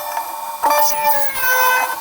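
Hurco BMC 2416 CNC machining center's cutter milling steel vise jaws, the cut singing as a high-pitched squeal of several tones that slowly slide in pitch. A sharp click about a third of the way in sets off a louder stretch.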